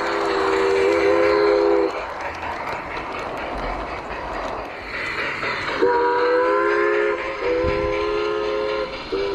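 Model steam locomotive's sound unit blowing a chime whistle in long multi-note blasts, over the rolling clatter of G-scale train cars passing close by on the track. One blast ends about two seconds in, a few seconds of rolling noise follow, and then two more long blasts sound near the end.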